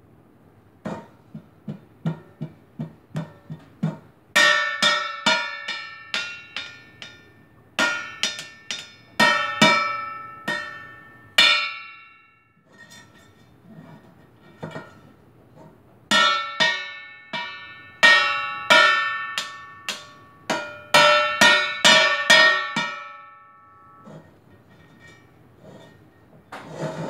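Upside-down copper-bottomed stainless steel pot beaten with a spoon: bursts of quick, irregular ringing clangs. Softer dull taps come at the start, and there are pauses of a few seconds between bursts.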